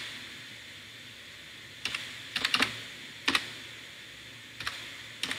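Computer keyboard typing in short bursts of a few keystrokes, with pauses between. The bursts start about two seconds in.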